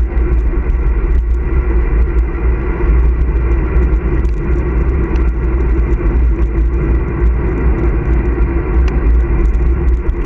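Wind buffeting the microphone of a handlebar-mounted camera on a moving road bike, heard as a loud, steady low rumble, with the hiss of the tyres rolling on asphalt underneath.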